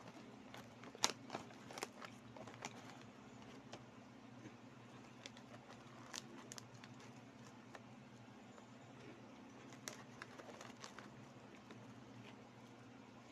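Scattered crinkles and crackles of a foil corn-snack bag being handled as fingers reach in for the snacks, with a run of sharper clicks in the first few seconds, the loudest about a second in.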